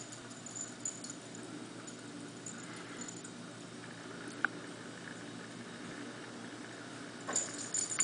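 Blizzard wind blowing steadily, with wind-driven snow ticking and pattering in small scattered clusters. A single sharp click comes about halfway through, and a louder flurry of ticks near the end.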